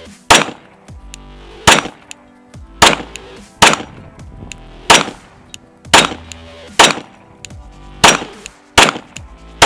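Glock 19 Gen 4 9mm pistol firing Sellier & Bellot ammunition, about nine sharp shots at a steady pace of roughly one a second. The pistol cycles every round without a malfunction.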